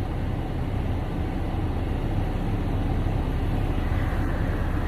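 Car engine idling steadily after being started.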